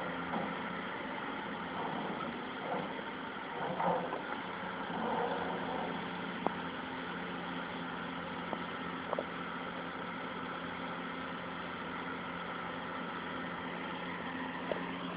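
An engine running steadily at idle, a low even hum, with a few faint clicks.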